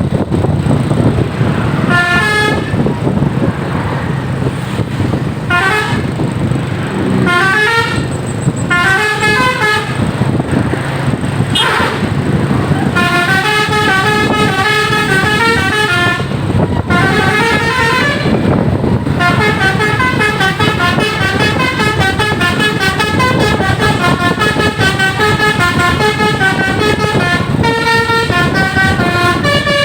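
Tour bus's multi-tone 'basuri' telolet horn playing quick stepping melodic runs, first in short bursts and then almost without a break from about 13 seconds in, over the bus engine and road noise.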